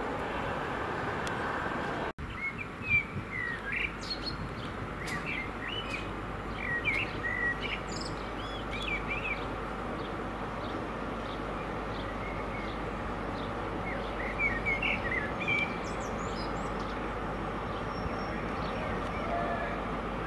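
Small birds chirping again and again over a steady low hum. For the first two seconds the rolling noise of a freight train's last wagons going past is heard; it cuts off suddenly.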